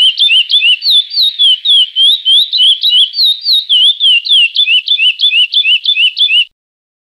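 Curió (chestnut-bellied seed finch) singing the classic 'praia' song: a fast run of clear, swooping whistled notes, about five a second, that stops abruptly about six and a half seconds in.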